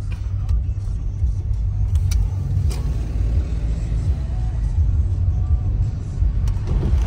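Interior noise of a car driving along, heard inside the cabin: a steady low rumble of engine and tyres, with a few faint light clicks.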